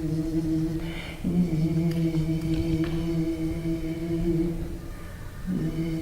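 A voice chanting long held notes on one steady pitch, with short breaks for breath about a second in and again near the end.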